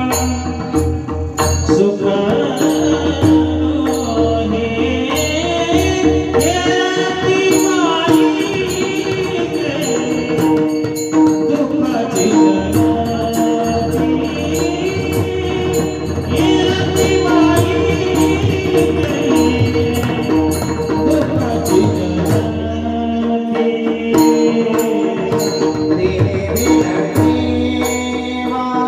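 Warkari kirtan chal: a long, gliding sung vocal line over pakhawaj drum and small hand cymbals keeping a steady beat, with held drone notes underneath.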